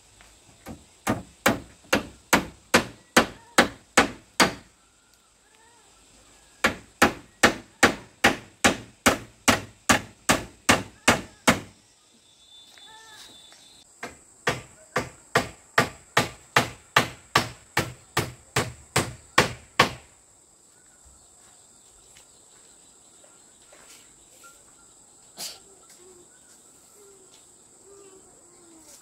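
Rhythmic blows struck by hand, about three a second, in three long runs of a dozen or more strikes each, with insects chirring steadily throughout.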